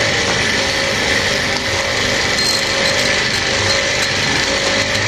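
High-speed hand-held rotary porting tool with a long pointed burr running steadily, a continuous high whine, as it grinds out a port of a Yamaha Jupiter Z's aluminium cylinder head.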